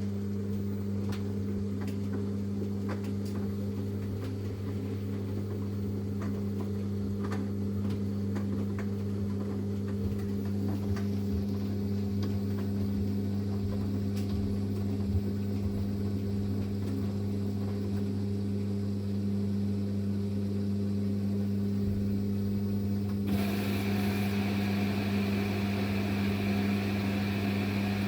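Samsung Eco Bubble washing machine running with a steady low electric hum and a few faint light clicks. About 23 seconds in, a steady hiss joins the hum.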